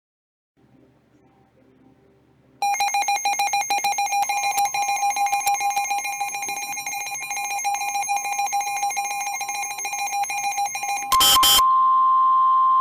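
Emergency Alert System attention tones, the alarm that comes before a broadcast weather warning. A loud steady alarm tone starts about two and a half seconds in, and a second tone joins it shortly after. Near the end a brief harsh burst cuts in, followed by a single steady higher tone.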